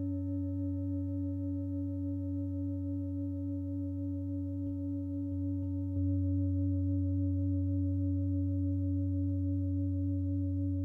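A 32 cm five-metal singing bowl ringing with a very deep, steady hum and a few higher overtones above it. It is struck softly again about six seconds in, and the tone swells and sustains.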